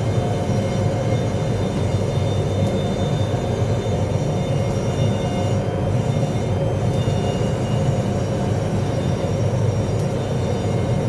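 Steady, loud machine hum and rumble with a few faint clicks.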